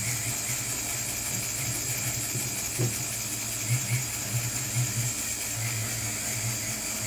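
Jeweller's rotary tool spinning a medium-grade rubber abrasive wheel against a sterling silver ring: a steady high motor whine with a low grinding that comes and goes as the wheel meets the metal, shaping and smoothing the ring during cleanup.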